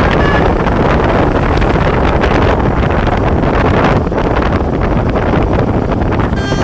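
A bus going by close, its loud steady rush mixed with wind buffeting the microphone. A short horn note sounds near the start, and the stepped multi-tone telolet horn tune starts right at the end.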